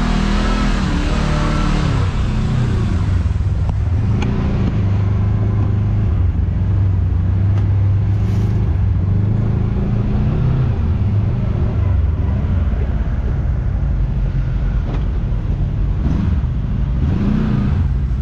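Side-by-side UTV engine running on the trail, its pitch dropping in the first couple of seconds, then rising and falling briefly about midway and again near the end.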